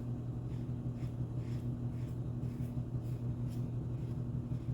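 Safety razor (1961 Gold Aristocrat adjustable) scraping through lathered stubble in short strokes, about two a second, over a steady low hum.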